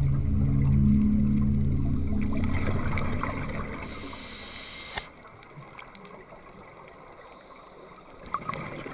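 Soft background music with low held notes fades out over the first few seconds, leaving muffled underwater gurgling of scuba exhaust bubbles. A sharp click about five seconds in, and another near the end.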